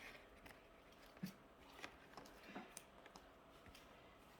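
Near silence in a small room, with a few faint short clicks and taps from objects being handled.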